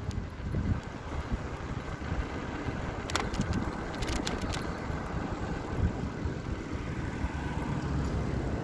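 Low rumbling wind and road noise from riding along a street, steady throughout, with a few light rattling clicks about three to four and a half seconds in.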